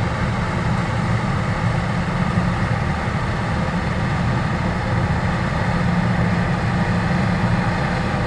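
New Holland CX8.90 combine harvester running steadily under load, a constant heavy engine and machine drone.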